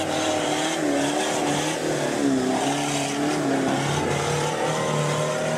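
Off-road 4x4 engine revving hard under load as the truck claws through deep mud, its pitch rising and falling as the throttle works.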